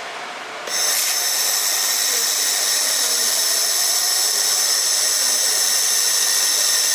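Air-cooled 1500 W laser welding machine running while it welds stainless steel: a steady hiss with a high whine that starts suddenly under a second in and holds even.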